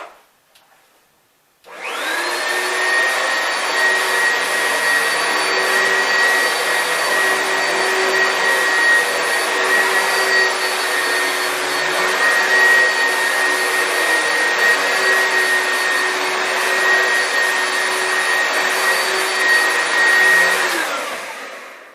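Oreck XL2 upright vacuum cleaner switched on about two seconds in and run over carpet in its second, carpet mode. It makes a steady rush of motor and airflow with a constant high whine. It winds down near the end as it is switched off.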